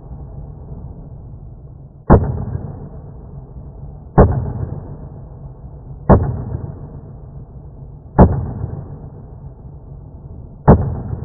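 Five single shots from a Sig Sauer P238 .380 pocket pistol, spaced about two seconds apart, each fading over about a second.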